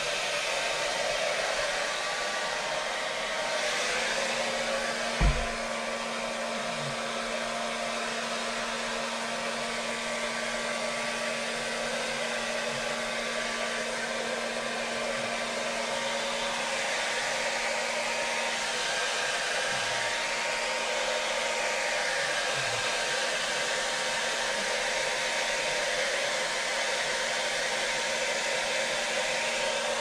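Handheld hair dryer running steadily, blowing warm air over a wet Labrador retriever's coat. A single low thump sounds about five seconds in.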